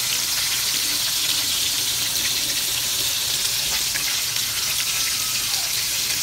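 Flour-coated chicken legs deep-frying in a wok of hot oil: a steady, vigorous sizzle of bubbling oil.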